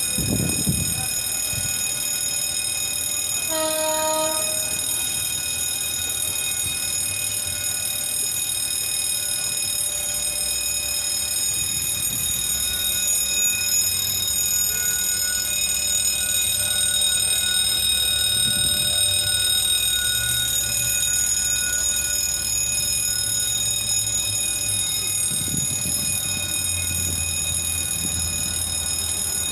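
Level-crossing warning bell on the signal mast ringing continuously. A train horn sounds briefly, about a second long, roughly four seconds in, and a low rumble builds underneath in the second half.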